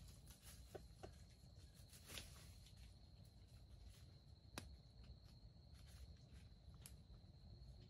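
Near silence: red junglefowl scratching and pecking in dry leaf litter give a handful of faint clicks and rustles, the sharpest about halfway through, over a steady high-pitched insect whine.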